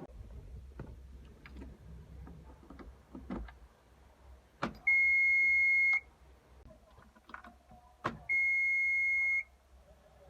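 Two steady, high-pitched electronic beeps, each about a second long and each starting just after a sharp click, the first about halfway through and the second near the end, over a low steady hum and scattered light clicks.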